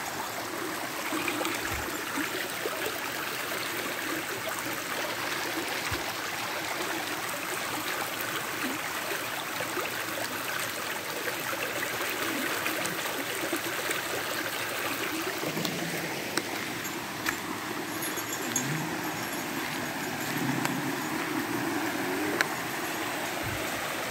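Rain-swollen woodland stream running fast over the ground and rocks, a steady rush of gurgling water. It is runoff from heavy overnight rain, flowing where there was no water the day before.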